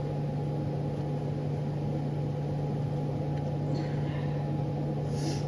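Steady low hum with a thin higher tone held under it, with faint scraping handling noises about four seconds in and again near the end.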